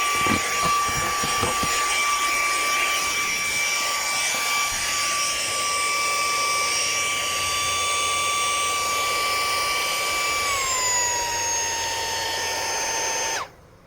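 UWALK handheld car vacuum cleaner running with a rush of air and a steady high whine, with a few clicks in the first couple of seconds. About ten seconds in the whine drops slightly in pitch and holds there, then the vacuum is switched off and cuts out suddenly near the end.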